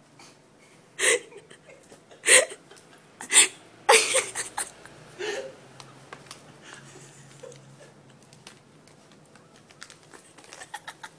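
Stifled, breathy human laughter in about five short bursts over the first five seconds, then plastic crinkling from a snack bag stuck over a cat's head, ending in a run of small ticks near the end.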